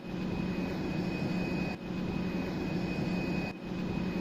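Steady mechanical drone with a low hum and a thin, constant high-pitched whine, like a jet engine running, dipping briefly twice.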